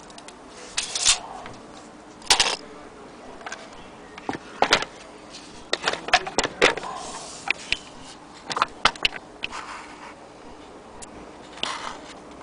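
Handling noise: irregular clicks, light knocks and short scrapes as the wooden toy train and the camera are handled close to the microphone.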